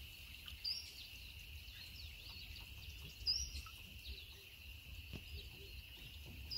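Faint natural ambience: a steady high insect drone, with a few brief small-bird chirps, the clearest about two-thirds of a second in and just after three seconds.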